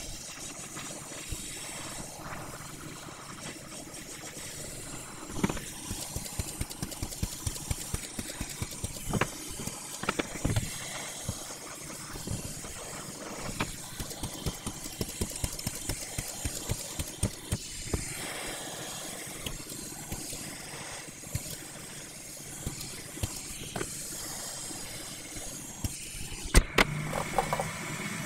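Hot air rework station blowing a steady hiss while the controller's switches and analog stick modules are desoldered, with many small clicks and taps of tools on the board. A sharp click comes near the end.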